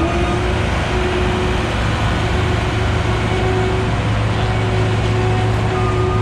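Heavy road-paving machinery engines running steadily, a constant low hum with a faint, slightly wavering whine above it.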